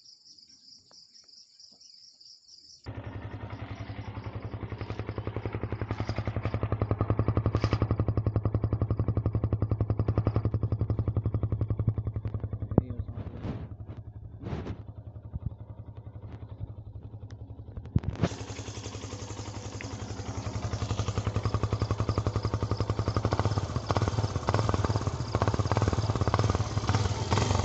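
Yamaha FZ-S V2's single-cylinder engine running through a modified silencer, coming in suddenly about three seconds in. It gets louder and hissier about 18 seconds in, with uneven throttle surges near the end.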